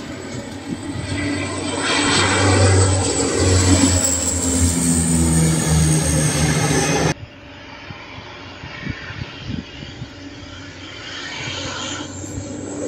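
Canadair CL-415 water bomber's twin turboprop engines as it flies low overhead: a high whine that falls slightly in pitch over a low propeller drone, loudest in the first half. The sound cuts off abruptly about seven seconds in and carries on quieter, building again near the end.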